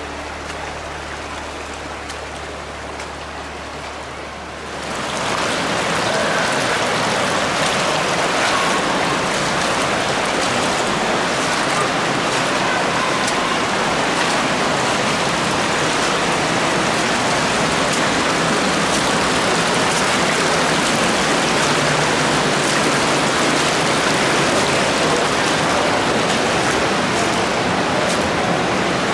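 Background music for the first few seconds, then loud, steady rushing of a shallow creek running over rocks, close to the microphone.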